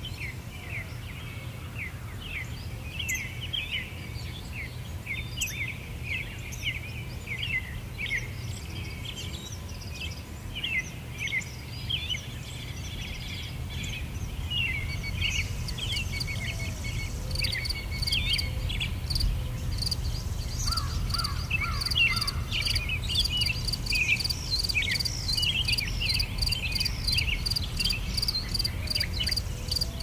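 Outdoor nature ambience: small birds chirping in quick, repeated short calls throughout, over a steady low rumble. From about halfway through, insects join in with a steady run of high, regular pulses, and the whole grows louder.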